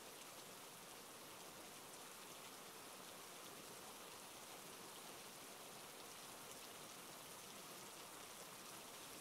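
Quiet, steady rainfall: an even, unbroken hiss of falling rain.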